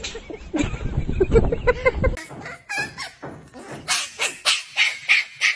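Black-and-tan Shiba Inu puppy yipping in a run of short, high-pitched barks, about three a second, in the second half. Before that comes a louder stretch of low rumbling noise with short pitched cries from a different dog clip.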